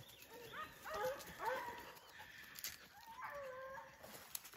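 Foxhound baying from the brush: several short bays in the first second and a half, then a longer, drawn-out bay a little past three seconds in.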